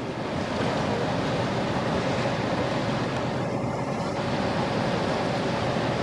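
Steady wind and water noise with a faint steady hum.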